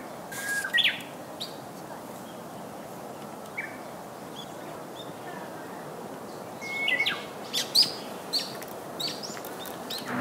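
Birds chirping: scattered short calls and quick sweeping whistles over a steady background hiss, busiest around seven to eight seconds in.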